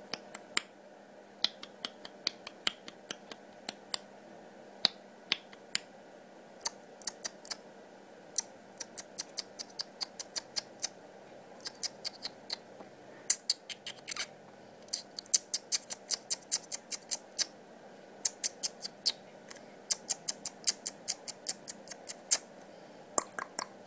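Irregular sharp clicks, often several a second and coming in clusters, over a faint steady hum.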